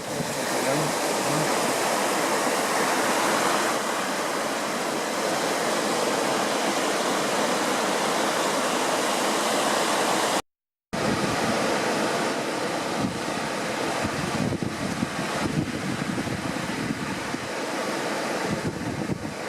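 Steady rushing noise of surf and wind at the shore, with no distinct calls. It drops out completely for about half a second near the middle, then resumes.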